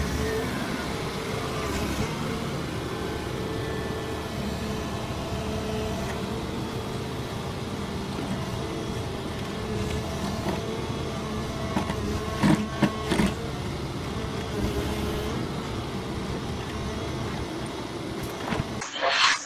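Volvo wheeled excavator's diesel engine running steadily, with a few sharp clanks about twelve to thirteen seconds in and a short loud noise just before the end.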